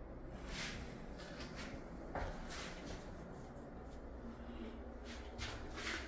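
Faint shuffling and rustling, several short soft brushes of noise, over a low steady hum in a small tiled room.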